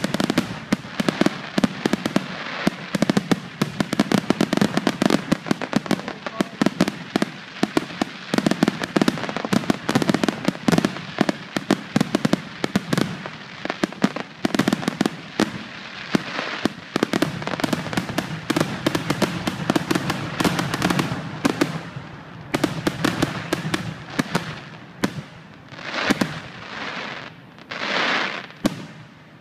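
Fireworks finale: a dense, rapid barrage of bangs and crackling from many shells bursting at once. After about twenty-two seconds it thins out to a few separate swelling bursts.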